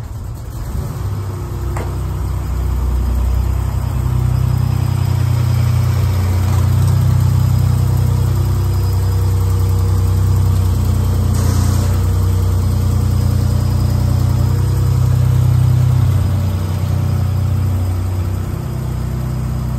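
Buick Grand National's turbocharged V6 running at low speed as the car is manoeuvred, a steady low exhaust rumble that swells slightly and eases off near the end.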